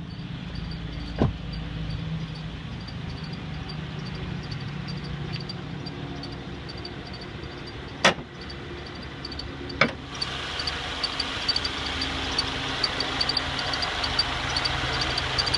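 2014 Subaru Outback engine running with a regular high-pitched chirp from the engine bay, about three chirps a second. There are a few sharp clicks or knocks, the loudest about eight seconds in, and the engine sound grows louder after about ten seconds.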